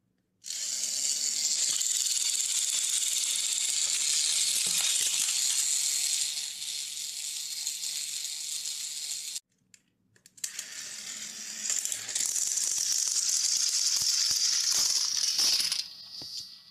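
Motors and plastic gears of battery-powered Thomas & Friends toy trains running, a steady high whirring rattle with scattered clicks. It cuts off suddenly about nine seconds in, starts again a second later and dies away near the end.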